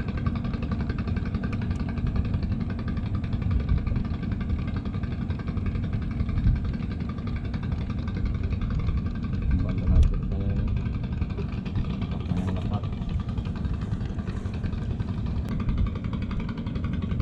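A boat's engine running steadily, a low drone.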